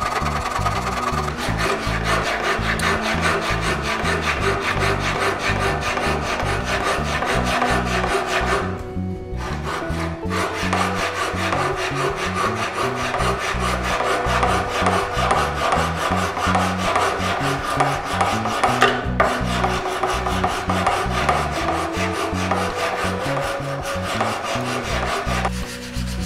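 Sandpaper rubbing back and forth on a laminated wooden slingshot stock: hand sanding in quick, continuous strokes, with short breaks about nine and nineteen seconds in.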